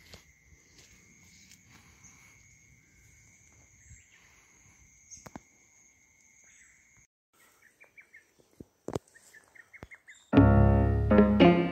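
Faint outdoor ambience: a steady high-pitched whine that stops about seven seconds in, then a few short bird chirps and clicks. About ten seconds in, piano music starts suddenly and is by far the loudest sound.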